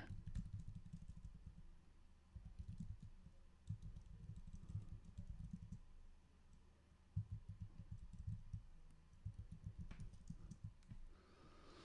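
Typing on a computer keyboard: faint, quick keystrokes in three runs with short pauses between.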